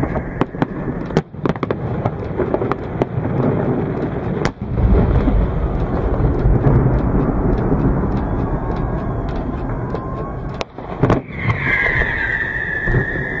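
Fireworks display: aerial shells bursting in a rapid series of sharp bangs and crackles over a dense low rumble. A high whistle or hiss comes in near the end.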